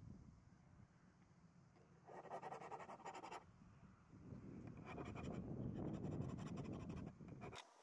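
Flat hand file rasping against a small steel chain connecting link, filing at the old deformed link to get it off. Two spells of filing, a short one about two seconds in and a longer one from about five seconds that stops abruptly near the end.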